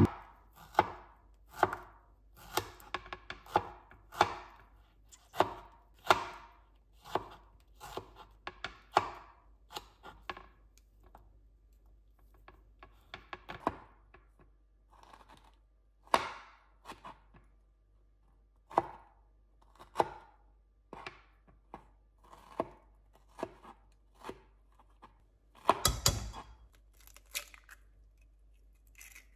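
Chef's knife chopping strawberries on a wooden cutting board: irregular knocks of the blade through the fruit onto the wood. They come close together at first and more sparsely later, with one louder knock near the end.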